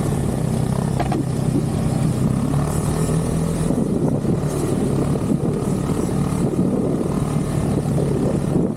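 Snowmobile engine running steadily under way, a continuous drone with a low steady hum that drops away a few seconds in.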